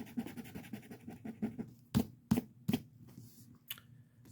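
Scratcher scraping the coating off a lottery scratch ticket in rapid back-and-forth strokes, stopping about two seconds in, followed by three sharp taps in quick succession and a fainter one later.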